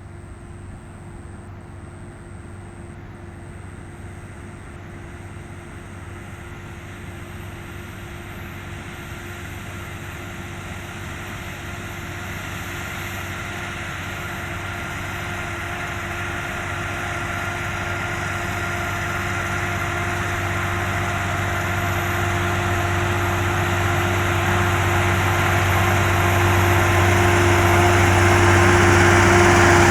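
Case IH Optum 300 tractor's six-cylinder diesel engine running at a steady speed while pulling a plough, growing steadily louder as the tractor draws closer.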